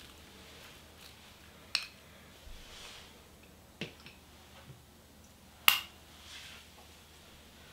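Three sharp clicks of chopsticks and a small ceramic dish being handled, about two seconds apart, with the loudest near the end. Faint soft rustles lie between them as chopped green onion is scraped out of the dish.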